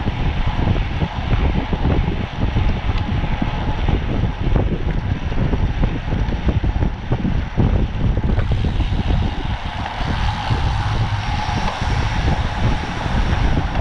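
Wind buffeting the microphone of a cyclist's camera while riding, with a low rumble of tyre and road noise. The hiss grows brighter about eight seconds in.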